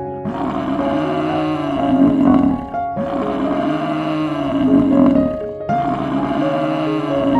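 A big cat roaring three times, each roar about two seconds long, over light background music.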